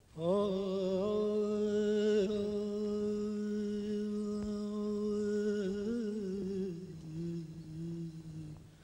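A wordless voice humming long held notes in a Persian classical melody, the pitch wavering slightly. The voice steps down to a lower note about two-thirds of the way through and fades out near the end.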